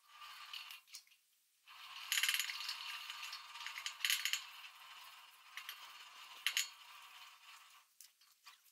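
Metal rattling and clinking from a hand-pulled trail cable car travelling along its steel cable. The clinking comes in irregular bursts, the sharpest about two, four and six and a half seconds in.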